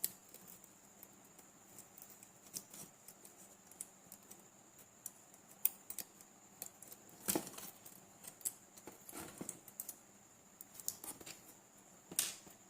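Scattered small clicks and taps of tools and components being handled while a resistor is fitted to a battery charger's circuit board, with a sharper tap about halfway through, over a faint steady high whine.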